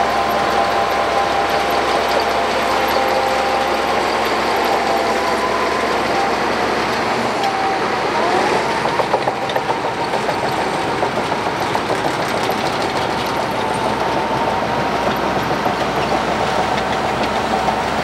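Shantui crawler bulldozer's diesel engine running steadily while it pushes sand, with a whine in its sound that rises in pitch about eight seconds in.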